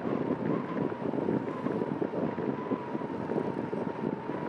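Wind buffeting the microphone of a moving bicycle, with rolling tyre noise beneath it and a thin steady whine running through.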